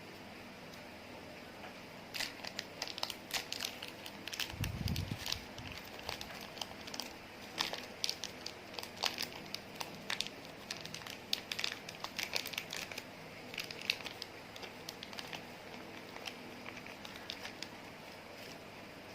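Slime being worked by hand, making irregular sticky clicks and small pops, with a low thump about five seconds in.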